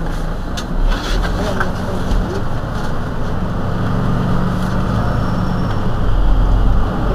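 Mercedes-Benz Citaro C2 city bus engine idling while the bus stands at a stop: a steady low hum that grows a little louder about halfway through, with a few short clicks near the start.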